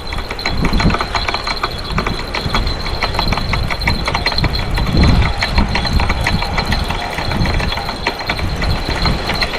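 Fishing reel being cranked while fighting a hooked striped bass: a rapid, continuous clicking of the reel, over a low rumble.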